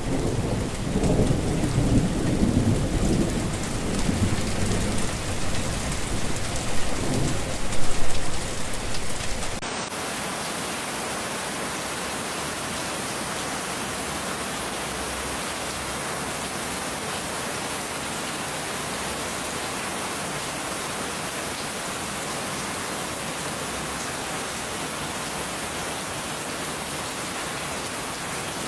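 Pouring rain. For the first ten seconds or so it comes with a loud, uneven low rumble that swells around two seconds in and again around eight seconds. Then it cuts abruptly to a steady, even rain hiss.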